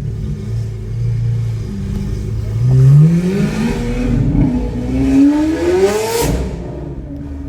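Lamborghini Aventador SV's V12 engine with a Capristo exhaust, running steadily, then accelerating hard about two and a half seconds in, its note rising for several seconds. The note breaks off abruptly about six seconds in and settles back to a lower steady note.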